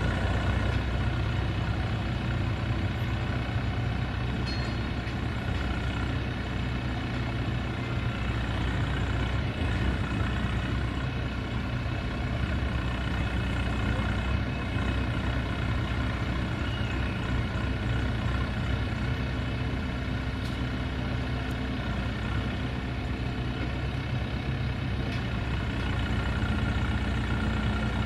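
Heavy diesel engine idling steadily: a low, even drone that holds without revving, with a few faint clicks of work on the trailer.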